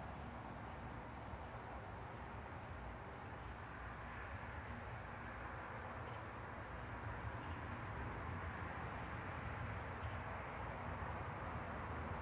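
Insects chirping: a thin, high, evenly pulsing trill that keeps on without a break, over a steady low outdoor background noise that grows slightly louder near the end.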